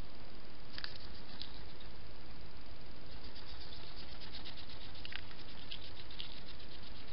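Faint scratchy ticks and rustles of a hedgehog moving right beside the microphone, thickest from about three seconds in, over a steady background hiss.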